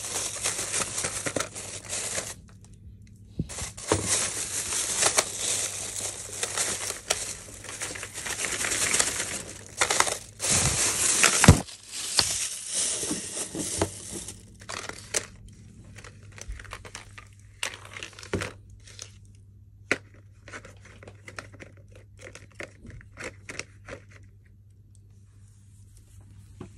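Plastic wrapping film crinkling and tearing as it is pulled off a plastic cat ball-track toy, in dense stretches through the first half. After that come scattered light clicks and taps as the plastic pieces are handled.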